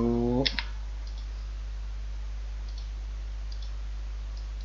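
A few sparse computer mouse clicks over a steady low hum. The loudest are two clicks close together about half a second in, followed by a few fainter single clicks.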